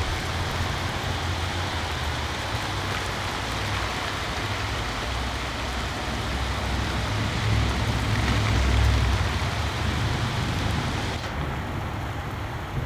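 Heavy rain falling steadily, under a low rumble of gusting wind that swells about seven seconds in and then eases.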